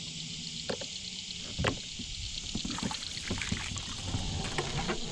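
A kayak moving across calm water: light water sounds and a few short knocks on the hull, over a steady high chirring of insects.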